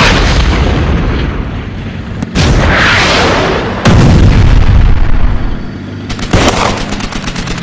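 Battle sound effects of artillery fire and explosions. There is a blast at the start, another about two seconds in, and a louder, longer explosion about four seconds in. Near the end comes a quick run of sharp gunshot cracks.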